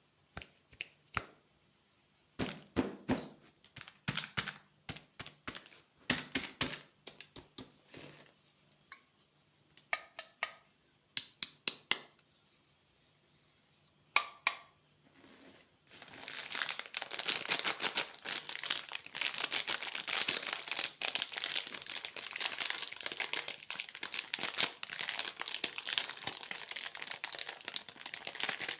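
Candy wrappers being handled and torn open: scattered crinkles and tearing sounds, then from about halfway through a dense, continuous crinkling.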